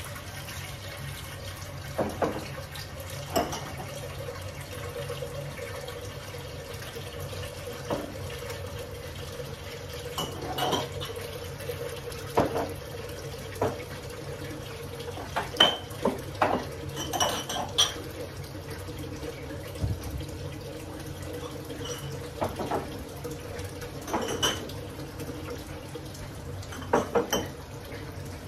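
Water running steadily from a kitchen tap, with short clinks and knocks of glass jars and pots every few seconds. Near the end comes a quick cluster of glass clinks as canning jars are handled.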